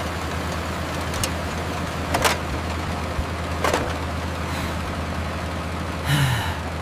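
A motor vehicle's engine running steadily with a low hum, with a few sharp ticks about one, two and three and a half seconds in.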